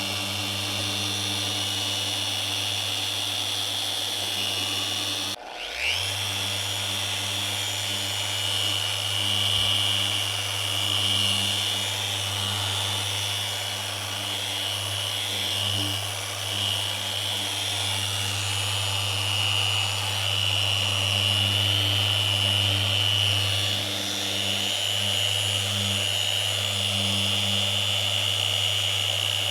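A handheld power tool, such as a sander or polisher of the kind used to restore a headlight lens, running steadily with a high whine. About five seconds in it cuts out briefly and spins straight back up with a rising whine, then runs on.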